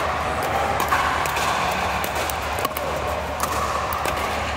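Pickleball paddles hitting the plastic ball: several sharp pops at irregular intervals over a steady background.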